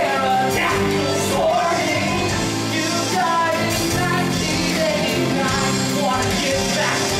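Rock music with a singing voice over a full band, playing steadily.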